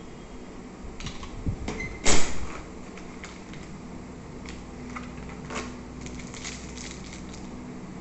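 Handling of door lock hardware: a sharp metal clack about two seconds in as the steel strike plates are put down on the table, then lighter clicks and the crinkle of small plastic bags of screws being handled. A steady hum runs underneath.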